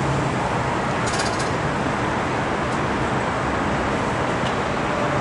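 Steady traffic and roadway noise, an even rumbling hiss with no break.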